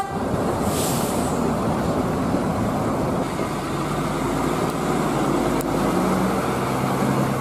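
Tour coach driving past on a wet road: steady engine and tyre noise, with a brief high hiss about a second in and a low engine tone coming up near the end.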